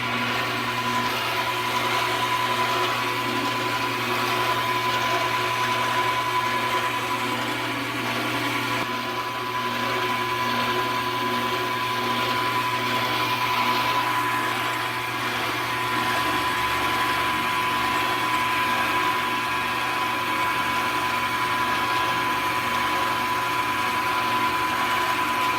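Milling machine running steadily with a steady whine, its four-flute end mill cutting a groove in a drill press spindle.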